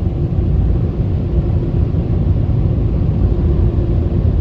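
Drive-through car wash drying blowers blasting air over the car, heard from inside the cabin as a loud, steady rumble with a faint steady hum.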